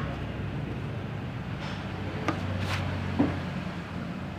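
A few light knocks and clicks of hand tools and metal engine parts being handled, over a steady low hum.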